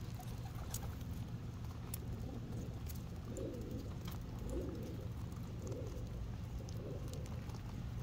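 Racing homer pigeons cooing: several low coos about a second apart in the second half, with light clicks of beaks pecking peanuts off a concrete floor, over a steady low rumble.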